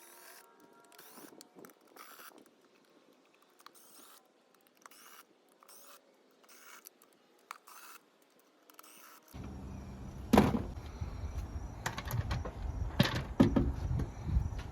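Hand tools and metal engine parts being handled: scattered faint clicks, clinks and short scrapes. After about nine seconds the background grows louder and a few sharp metallic knocks come, the loudest soon after.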